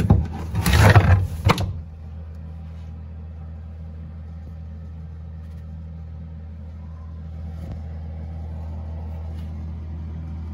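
Plywood hatch being pried and lifted off a compartment, with rough scraping for about the first two seconds. After that a steady low hum continues.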